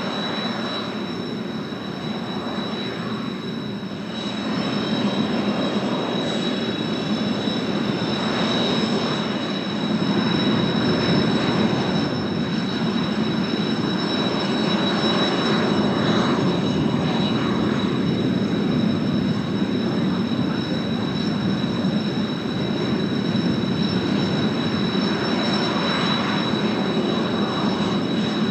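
Kawasaki T-4 jet trainers' turbofan engines running, a steady high whine over a rushing noise, getting louder about four seconds in.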